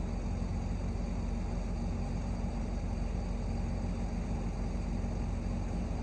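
Steady low drone of a farm machine's diesel engine running, with an even hum and no change in pitch.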